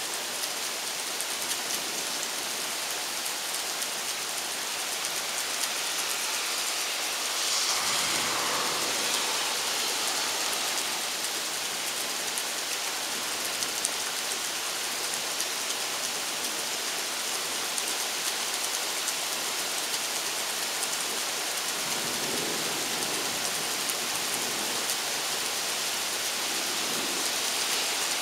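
Steady heavy rain falling, briefly swelling louder about a quarter of the way in, with a low rumble of distant thunder in the last third.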